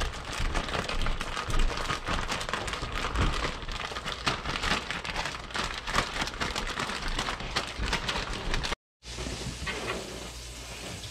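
Hot oil sizzling and crackling in a frying pan as it heats, a dense steady crackle that breaks off for a moment about nine seconds in and then goes on more quietly.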